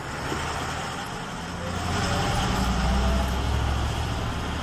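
Bus engine running as the bus pulls away, its low rumble growing louder about a second and a half in.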